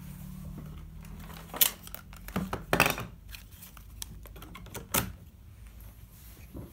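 A few separate sharp clicks and knocks of a charger's cable and plug being handled on a tabletop, the loudest about one and a half and nearly three seconds in.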